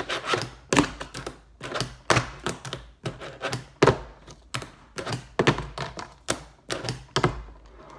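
Fingerboard clacking against a cardboard game box and tabletop as tricks are tried: a run of sharp, irregular clacks, about two a second.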